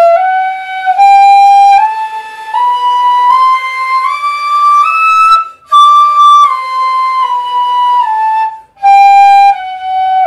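Pífano in G, a Brazilian cane transverse fife, playing a one-octave E minor scale, E F♯ G A B C D E, as a practice exercise. It climbs in even steps to the top E, pauses briefly for breath, then comes back down, with another short breath shortly before the low notes.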